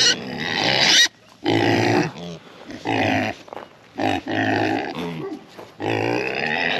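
Idaho pasture pigs calling loudly, about five calls in a row, each under a second long with short gaps between: hungry pigs begging for their feed.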